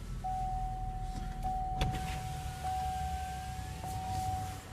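Buick Cascada's engine idling just after being started, a steady low rumble heard from inside the cabin, with a steady high-pitched tone over it from just after the start to near the end.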